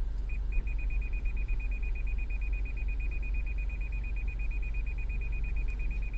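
A car's electronic warning buzzer beeping: a fast, even run of short, high beeps at one pitch that starts just after the opening. Under it is the steady low rumble of the vehicle.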